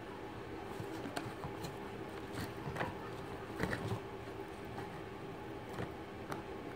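A steady low hum, with a few light clicks and taps scattered through it.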